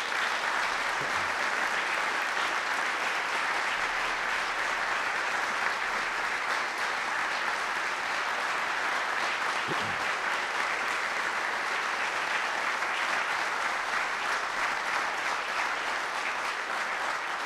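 Long, steady applause from a large audience of General Assembly members.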